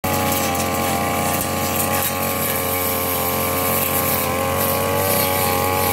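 Backpack brush cutter's petrol engine running steadily while its cutting head trims grass.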